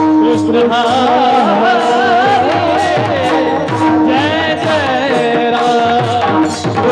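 Marathi devotional bhajan music: a voice sings a wavering, ornamented melody over a steady drone, with a drum and regular sharp strikes keeping the beat.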